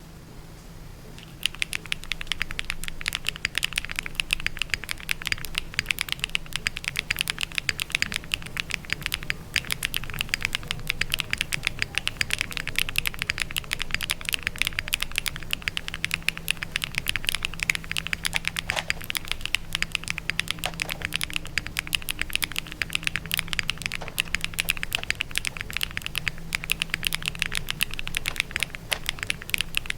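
Continuous fast typing on a Neo60 CU mechanical keyboard with Keygeek Sea Salt Taro switches, KBS 1950s doubleshot ABS keycaps, a PP plate and full foam, starting about a second and a half in. Dense clicks of keystrokes, many per second.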